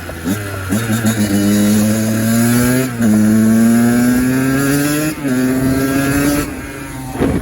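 Kawasaki KX85's single-cylinder two-stroke engine blipped at idle, then pulling hard with its note rising, shifting up twice, before dropping back to idle with one last short blip.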